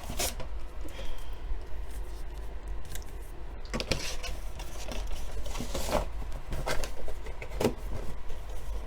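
Trading card packs being pulled out of a cardboard hobby box: short, irregular rustles and scrapes of foil wrappers and cardboard, over a steady low hum.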